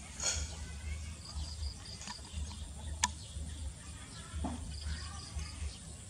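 Outdoor rural ambience: short runs of high chirps repeating every couple of seconds over a low rumble, with one sharp click about three seconds in.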